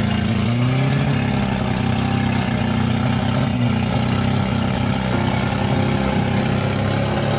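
Off-road 4x4's engine running at low, steady revs as the vehicle crawls up a steep dirt mound, with the pitch rising slightly about a second in.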